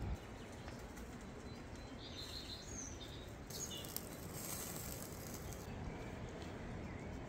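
Quiet outdoor ambience: a steady low background hiss with a few short high bird chirps about two to three seconds in, and a stretch of soft high hiss through the middle.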